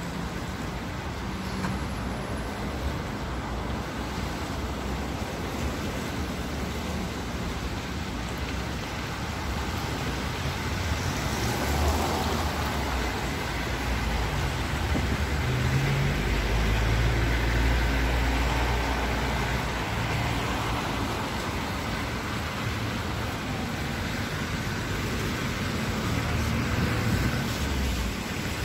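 Steady road traffic on a busy city street: car tyres and engines passing continuously. It grows louder in the middle, with a deep low rumble for a few seconds.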